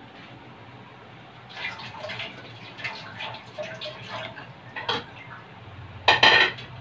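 A metal spatula stirs and scrapes pork pieces simmering in liquid in a metal wok, with short scrapes and clinks against the pan. A louder clatter of metal on the pan comes near the end. The pork is being simmered to make it tender.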